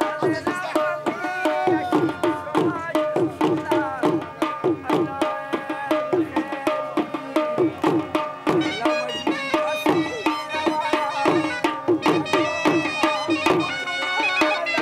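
Folk dance music: quick hand-drum strokes, about three a second, under a melody instrument playing long held notes.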